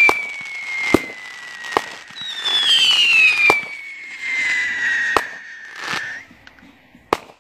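Aerial fireworks going off: about half a dozen sharp bangs at uneven gaps, with two long high whistles falling in pitch, the second starting about two seconds in.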